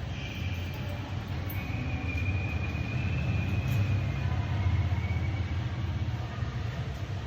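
Low, steady rumble of a vehicle running, growing louder towards the middle, with a faint high whine above it.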